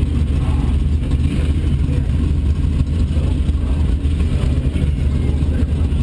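Car engine idling, a steady low rumble at an even level, heard from inside the cabin.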